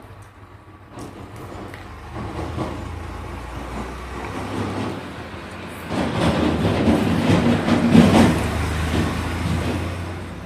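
A motor vehicle passing by: a rumble that builds, is loudest a little past the middle, and then fades.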